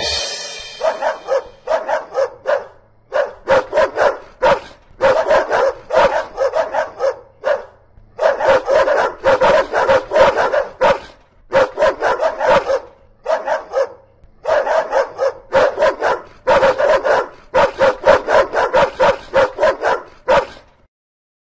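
Dog barking over and over, in runs of quick barks with short breaks between them.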